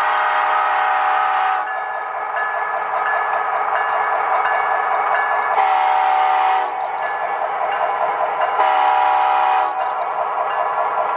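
The onboard sound decoder of an HO-scale Athearn Genesis SD70M-2 model diesel plays its horn through the small speaker, over a steady diesel engine sound. One horn blast ends about a second and a half in, two shorter blasts come about six and nine seconds in, and another begins right at the end.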